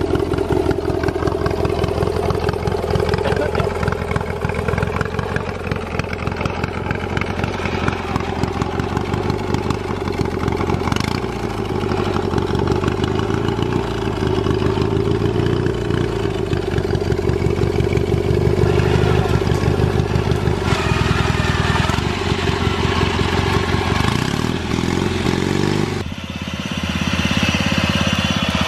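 Modified off-road riding lawnmower engines running steadily under load as the mowers crawl over rough trail, the engine pitch rising and falling a little. Near the end the sound changes abruptly to a different mower's engine.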